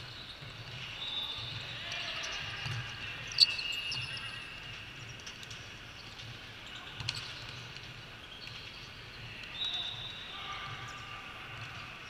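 Volleyball rally: sharp hits of the ball, the loudest about three and a half seconds in and smaller ones around seven and nine and a half seconds, over players' voices.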